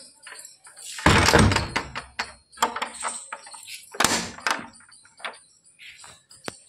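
A wooden door pushed shut with a loud thud about a second in, then its metal slide bolt worked by hand, clanking about four seconds in, with a few lighter clicks after.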